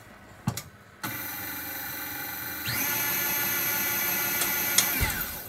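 KitchenAid stand mixer's motor running with its wire whisk beating mascarpone into whipped cream. The steady whine starts about a second in, steps up louder to a higher speed partway through, and the mixer switches off near the end.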